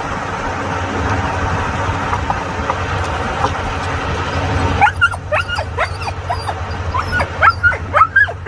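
A steady low drone, then, after a sudden change about five seconds in, a dog whining and yipping in a run of short, high, rising-and-falling whimpers.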